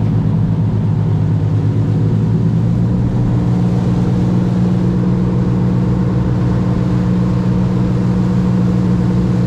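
Charter fishing boat's engine running steadily at low speed, with its note shifting about three seconds in.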